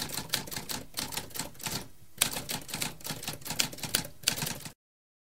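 Typewriter keys clacking in quick, irregular strokes, with a short pause about two seconds in. The typing stops abruptly a little before the end.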